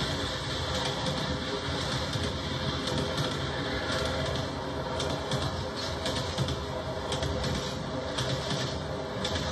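Passenger railroad cars rolling past on steel rails: a steady rumble of wheels and running gear, with rapid irregular clicks and rattles from the wheels going over the track.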